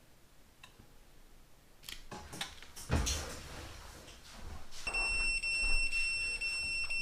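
Handling clatter with a thump about three seconds in. Then, about five seconds in, a Fluke two-pole voltage tester's buzzer starts a steady high tone, the sign that the immersion heater thermostat's circuit is closed.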